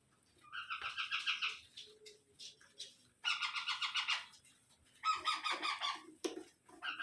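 Indian ringneck parakeet calling in three harsh, rapidly pulsed chattering screeches, each about a second long, with short pauses between them.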